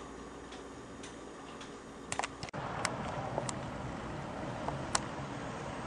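Even, clock-like ticking at about two ticks a second. About two and a half seconds in it cuts off abruptly, replaced by a steady outdoor background hiss with a few sharp clicks.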